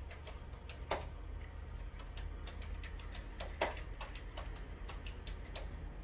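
Computer keyboard being typed on: irregular key clicks, several a second, with a couple of sharper strikes, one about a second in and one a little past the middle.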